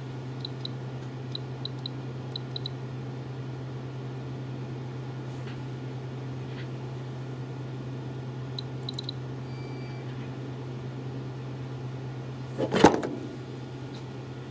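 A steady low electrical hum with faint high ticks, two brief high beeps about ten seconds in, and one loud knock about twelve and a half seconds in.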